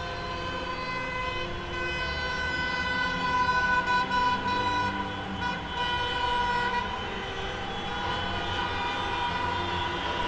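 Motor vehicle sound effect dubbed over the toy play: a steady engine rumble with several high tones held over it.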